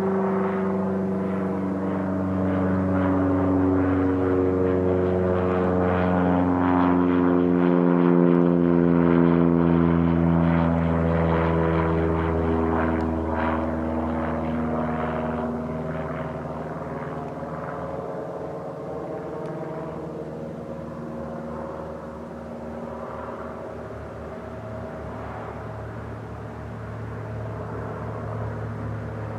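Single-engine piston propeller plane passing low overhead. The engine and propeller drone grows loudest about eight seconds in, drops in pitch as the plane goes by, then fades.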